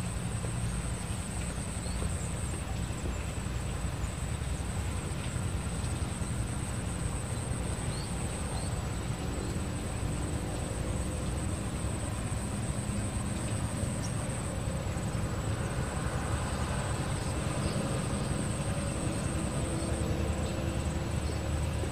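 Insects trilling steadily at a high pitch over a low, even rumble.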